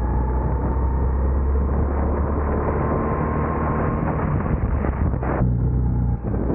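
Go-kart running along the track, its whine slowly rising in pitch as it gathers speed and then easing off about five seconds in as it slows. A heavy low rumble of wind and vibration on the kart-mounted microphone sits under it.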